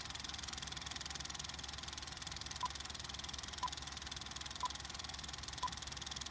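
A steady, fast, even mechanical running sound like a motor or machine. From about two and a half seconds in, a short high beep sounds once every second.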